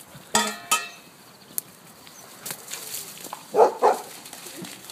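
A dog barking in short single barks: two quick ones near the start, then two louder ones close together past three and a half seconds in.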